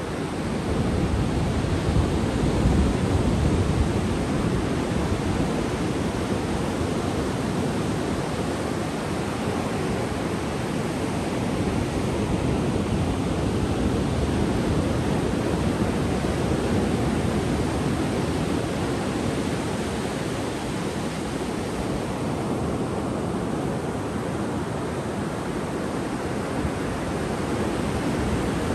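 Ocean waves breaking and washing up a sandy beach: a steady rush of surf, a little louder in the first few seconds.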